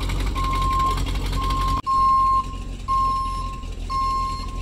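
Dump truck's reversing alarm beeping as the truck backs up: a single-pitched beep about once a second over the running engine. The engine sound falls away about two seconds in, leaving the beeps clearer.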